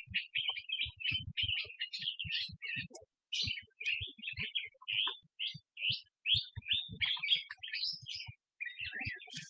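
Small birds chirping continually, a rapid string of short high notes with hardly a pause, and faint low knocks scattered among them.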